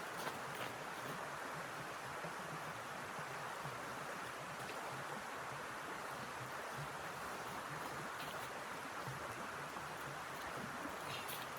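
Steady rushing blizzard wind, with a few faint ticks.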